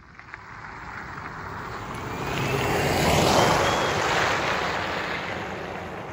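Jeep Wrangler 4xe plug-in hybrid driving past: a rush of tyre and road noise swells as it passes, about three seconds in, then fades as it drives away. A faint high whine glides up and down through the loudest part.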